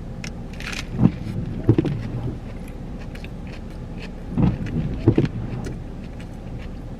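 Someone taking a bite of a fast-food burger and chewing inside a car, over a steady low hum from the car. A brief rustle comes near the start, and a few soft bumps follow, the loudest about a second in and again about four and a half seconds in.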